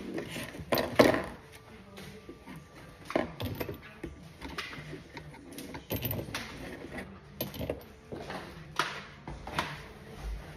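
Irregular knocks, clicks and rattles of bike parts and packaging being handled during unboxing, the loudest knocks about a second in.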